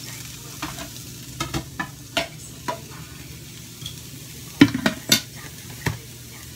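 A wooden spatula knocks and scrapes in a nonstick frying pan while a fish-and-chili mixture fries with a faint, steady sizzle. Near the end comes a louder cluster of knocks as the pan is taken by its handle and moved off the gas burner.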